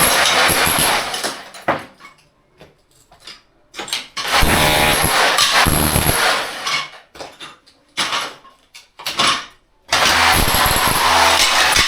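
A power tool's motor running in bursts, switched on and off several times, with gaps of a second or two between runs.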